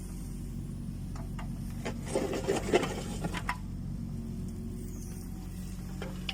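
Kubota U20 mini excavator's diesel engine running steadily, with a burst of scraping and clicks about two seconds in.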